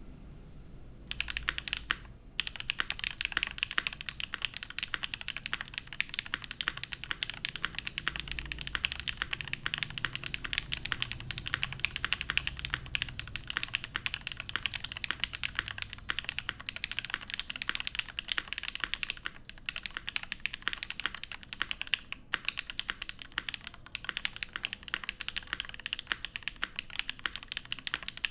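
Steady, fast typing on an O-ring-mounted custom mechanical keyboard with lubed Black Cherry Pie linear switches, an aluminium plate and GMK keycaps. It starts about a second in and runs on in a dense stream of keystrokes, with a few brief pauses.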